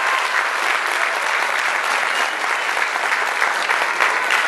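Audience applauding steadily, dense continuous clapping with a few voices cheering among it.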